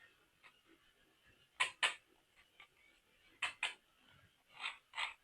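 Sharp clicks of plastic toy parts or packaging being handled: two quick pairs of clicks, then a steady run of about three clicks a second near the end.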